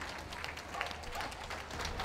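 Scattered, irregular clapping from a ringside crowd over a faint low hum.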